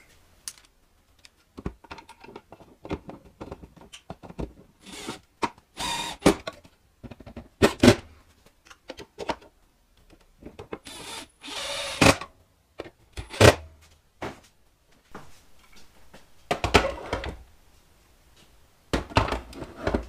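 Intermittent workshop handling sounds: a cordless drill driving screws to mount plastic torch holders on the wall, with clacks and knocks as the holders are fitted and gas torch cylinders are set into them.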